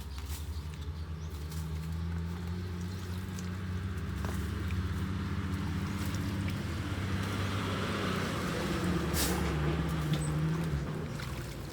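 A motor vehicle engine running steadily, its pitch wavering slightly, with a swell of noise in the second half and one sharp click about nine seconds in.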